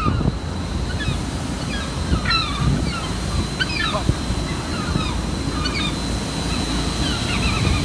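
Gulls giving harsh alarm calls, a string of short calls about every second, while defending a rooftop nest with chicks and eggs. Under them runs a steady low rumble.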